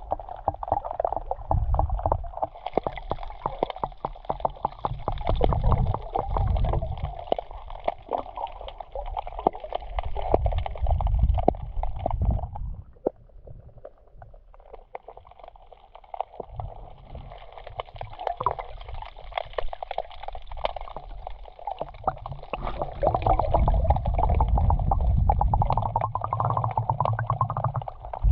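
Water heard through a camera held underwater, muffled gurgling and sloshing with dense crackling and low surging rumbles as the sea moves around the housing. It goes quieter for a couple of seconds about halfway through.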